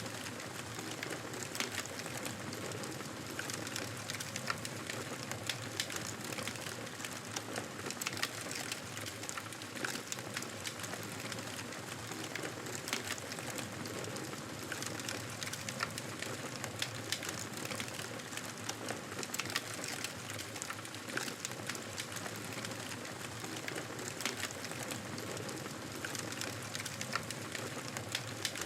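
Wood fire burning, a dense, irregular crackle of small pops and snaps over a steady hiss.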